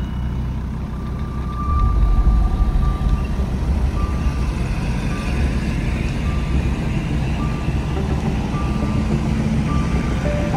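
Off-road vehicle running with a heavy, steady low rumble that gets louder about a second and a half in, and a thin high beep coming and going in short, uneven pulses.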